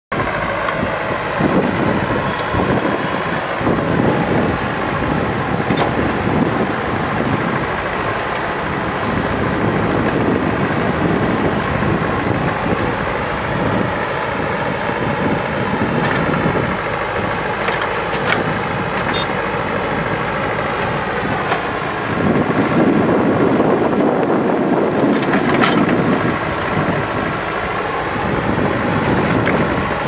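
JCB backhoe loader's diesel engine running under varying load as the machine works, with a few sharp knocks. The engine swells louder for a few seconds about three-quarters of the way through.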